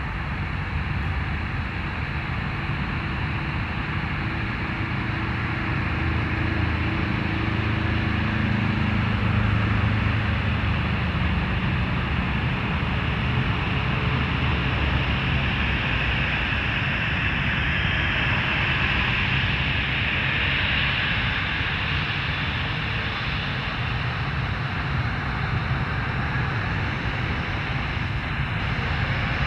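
Embraer E195 airliner's twin turbofan engines running at low thrust as it taxis onto the runway and lines up: a steady jet rumble with a turbine whine. The engine noise begins to build right at the end as thrust comes up for the takeoff roll.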